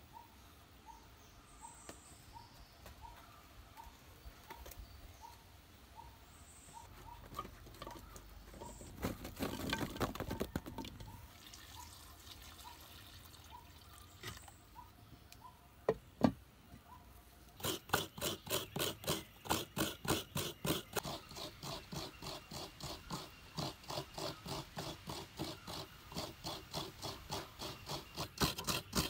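Water poured into a cooking pot from a clay pot about ten seconds in. Then, for the last ten seconds or so, a coconut half is grated on a hand coconut scraper, with even rasping strokes about two a second.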